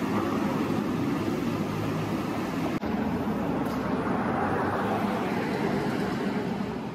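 Street traffic noise: a motor vehicle running past, fading near the end.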